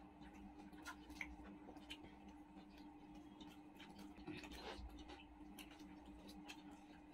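Faint, irregular small clicks and ticks of eating by hand, as fingers tear paratha and pick curry off plates, over a steady low hum.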